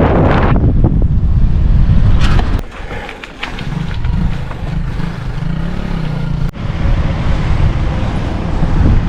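Road vehicle noise with wind buffeting the microphone; in the middle an engine note rises and falls for a few seconds.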